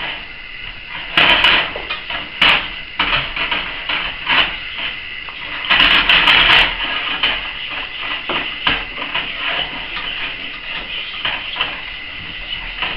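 A utensil scraping and knocking around the inside of a stainless steel saucepan as a milk and roux sauce is stirred, in quick, irregular strokes. It is loudest about a second in and again around six seconds in.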